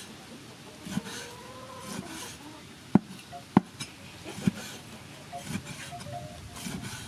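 Cleaver slicing raw cow heart on a round wooden chopping block: a string of sharp, irregularly spaced knocks as the blade cuts through and strikes the wood, the loudest two about three and three and a half seconds in.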